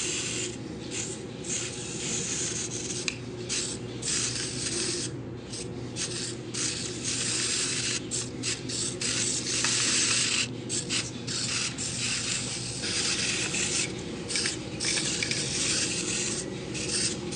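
Scratchy hissing noise that cuts in and out irregularly, over a steady low hum that fades out about two-thirds of the way through.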